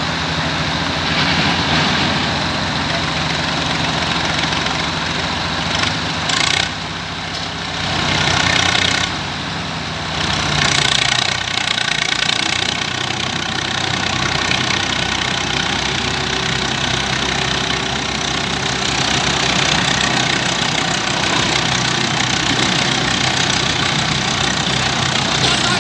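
Diesel engines of a Swaraj 855 tractor and a road roller running hard against each other in a pulling contest. The sound is a steady low engine note with louder swells about six to seven seconds in and again from about eight to eleven seconds.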